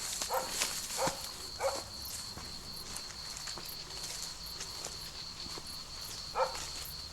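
Footsteps swishing through dry grass and a rapeseed crop under a steady high-pitched insect drone. Short animal calls, the barks of a distant dog, come three in quick succession and once more near the end.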